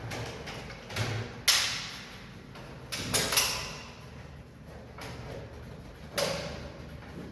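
A handful of sharp knocks and clanks from installation work, each dying away quickly: about five hits, the loudest about a second and a half in and again at about three and a half seconds.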